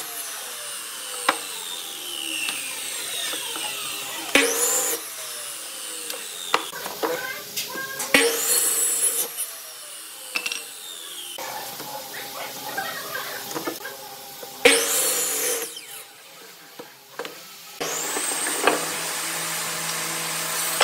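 Electric miter saw cutting through round wooden poles, several short loud cuts, each followed by the blade spinning down with a slowly falling whine. About 18 s in, a steady machine noise with a low hum starts and runs on.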